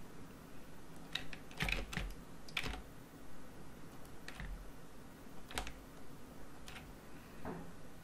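Computer mouse clicking, about eight short clicks at irregular intervals, as points of a polyline are placed one by one.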